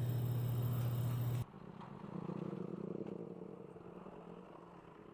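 Steady vehicle and road noise with a low hum, which cuts off abruptly about a second and a half in. After it a much fainter low hum slowly fades.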